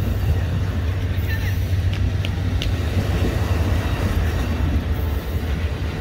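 Amtrak Superliner double-deck passenger cars of a departing train rolling past: a steady low rumble of wheels on rail.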